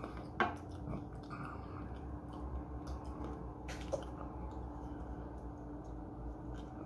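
Quiet room with a steady low hum, broken by a few small clicks and taps of hands handling takeout containers and a plastic-lidded cup, with a drink from the cup near the end.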